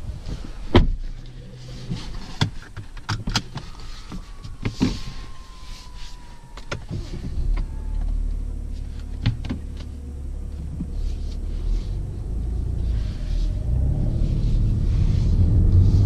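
Inside the cabin of a BMW 750d: the door shuts with a thud about a second in, followed by several clicks of cabin controls and an electric motor whining, its pitch sliding slightly down. From about halfway the car's quad-turbo 3.0-litre straight-six diesel runs as a low rumble, growing louder near the end as the car pulls away.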